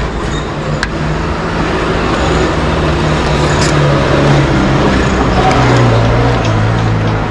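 Road traffic with a vehicle engine running close by, its low hum dropping in pitch about five seconds in.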